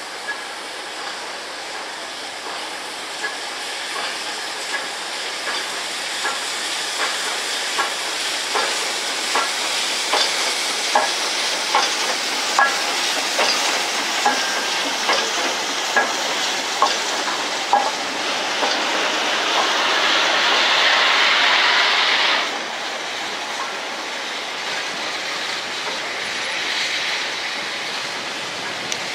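Steam-hauled train of coaches passing slowly, its wheels clicking over rail joints at a steady beat of a little over one click a second. About two-thirds of the way through, a loud hiss of steam from the trailing LNER A4 steam locomotive builds and then cuts off suddenly.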